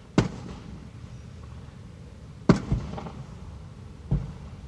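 Aerial fireworks shells bursting: three sharp booms a second or two apart, the middle one the loudest, each trailing off briefly.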